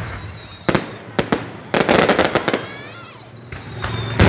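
Fireworks going off: a run of sharp bangs, with a dense burst of crackling bangs about two seconds in and more bangs near the end.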